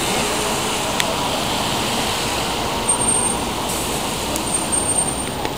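Steady city street traffic: cars and vans passing on a wet road. A thin high-pitched squeal is heard twice around the middle.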